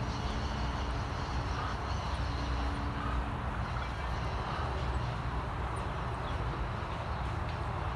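A horse cantering on an arena's sand footing, its muffled hoofbeats under a steady low outdoor rumble. A faint steady hum fades out about three seconds in.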